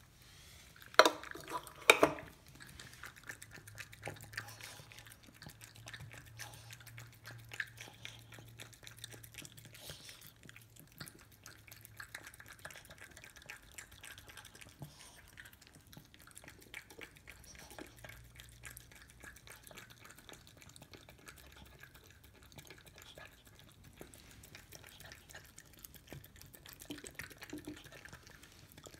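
A Chihuahua eating a fried egg out of a stainless steel bowl: wet licking with many small irregular clicks of tongue and teeth against the metal. Two loud clinks of the bowl come about a second apart near the start.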